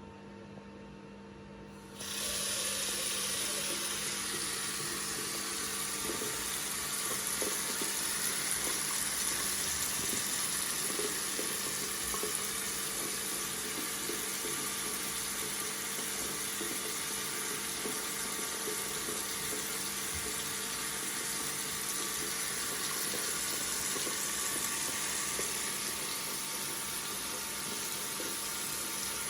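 Water faucet running steadily, the flow starting suddenly about two seconds in and then pouring on in an even, unbroken rush.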